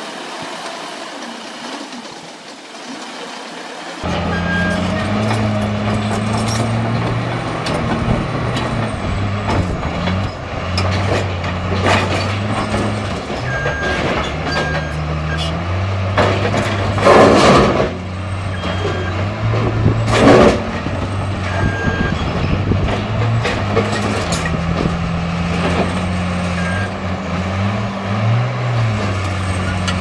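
Large Caterpillar crawler bulldozer's diesel engine working under load, its low drone stepping up and down in pitch as it pushes. The engine comes in loud a few seconds in. There are two short loud bursts of noise about 17 and 20 seconds in, and a few short high beeps now and then.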